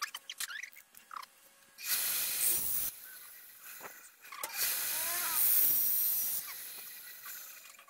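Bandsaw blade cutting through a pine board: two hissing bursts of sawing, a short one about two seconds in and a longer one about half-way through.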